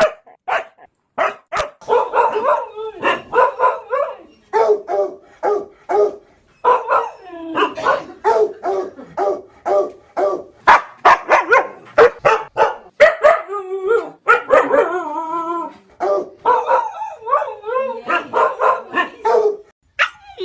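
A dog barking over and over in quick runs of short, loud barks, with a longer wavering, howl-like call about fourteen seconds in.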